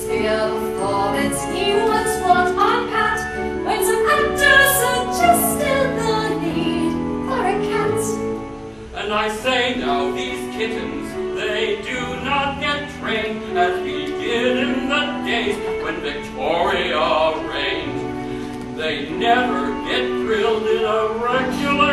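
A stage-musical song: singing over instrumental accompaniment, in a sustained, operatic style.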